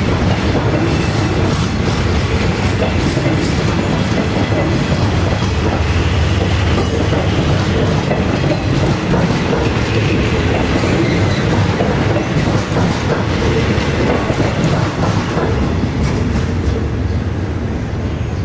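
Passenger coaches of a departing diesel-hauled train rolling past on the rails, a steady loud rumble of wheels and bogies on the track, easing a little near the end as the last coach goes by.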